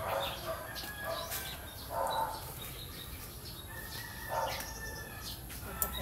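Chickens clucking a few times in the background, with small birds chirping.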